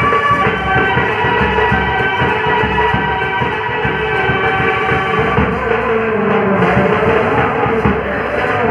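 Background music: instruments holding steady tones over a continuous drum beat.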